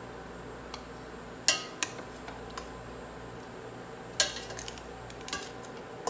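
Metal ladle clinking and scraping against a stainless steel pot while scooping out boiled broccoli florets, with two louder clanks about a second and a half in and about four seconds in, and a few lighter clinks.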